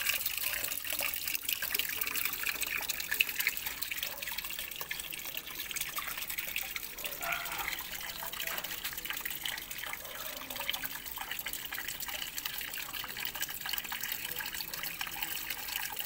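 Water pouring in a thin stream into a small garden pond, a steady splashing trickle.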